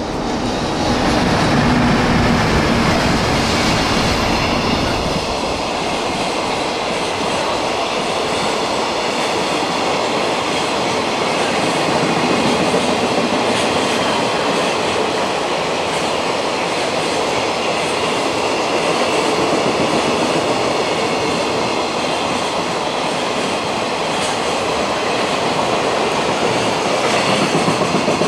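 Freight train hauled by an EH500 electric locomotive passing close by, followed by a long string of container wagons whose wheels run over the rails in a loud, steady noise.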